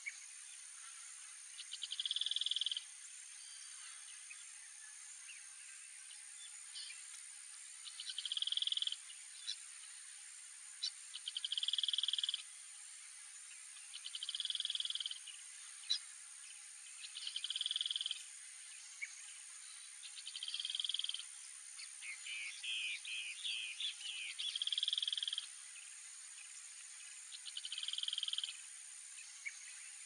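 An animal calling in a steady series: a trilled call about a second long, repeated roughly every three seconds, over a constant thin high whine. About two-thirds of the way through comes a quick run of shorter chirps.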